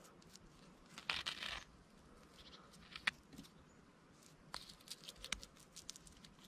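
Small trowel scraping and spreading wet clay mortar along the top of a brick: a short scrape about a second in, a sharp tap near three seconds, then a run of short scrapes and taps near the end.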